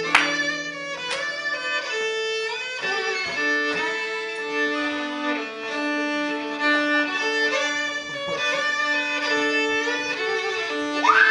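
Instrumental passage of a song: a violin plays a melody over guitar accompaniment, with no singing.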